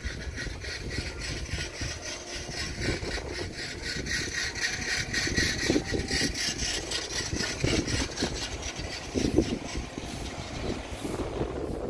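Outdoor background noise: a steady hiss over a low rumble, with a few soft thuds, the hiss falling away near the end.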